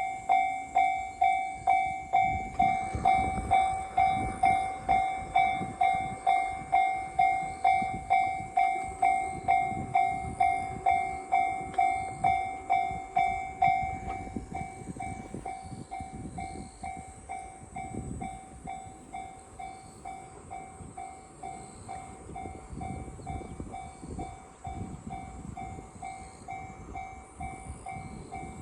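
Japanese railway level-crossing warning bell ringing about twice a second, loud for the first half and then quieter, while a train rumbles past.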